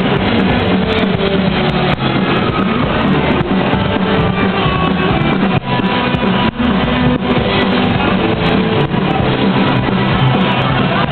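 Live heavy metal band playing an instrumental passage: electric guitars, bass and drum kit, loud and dense, with a dull, top-cut recording.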